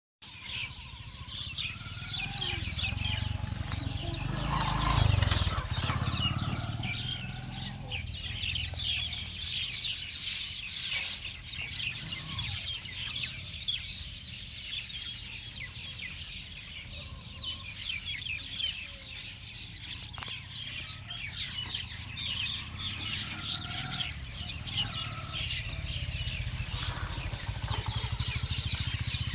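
Many small birds chirping at once in a dense, unbroken twitter, with a low rumble underneath that swells about five seconds in.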